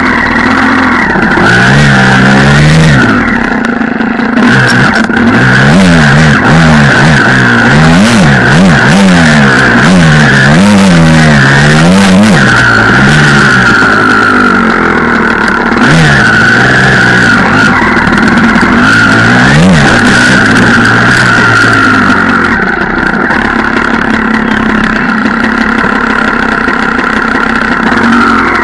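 Enduro dirt bike engine revving up and down again and again as the throttle is worked over rough trail, loud and close, with quick rises and falls through the middle and steadier running near the end.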